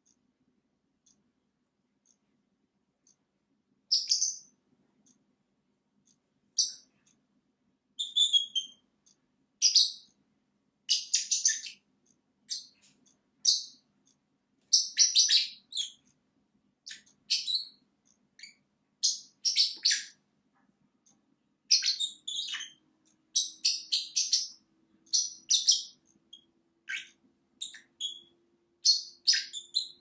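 Pet lovebirds (a black-masked lovebird and a violet Fischer's lovebird) chirping: short, high-pitched calls in quick runs, starting about four seconds in and coming more often toward the end.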